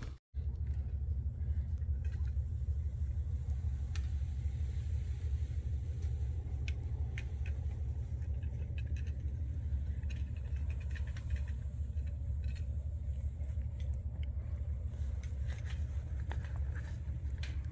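Wind buffeting the microphone: a steady low rumble, with faint scattered clicks over it. The sound cuts out for a moment just after the start.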